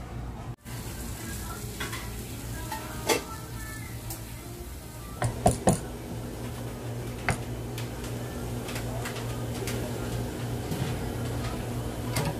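Bubble-waffle irons being handled: scattered sharp metal clanks and knocks, loudest as three in quick succession about halfway through, over a steady low hum.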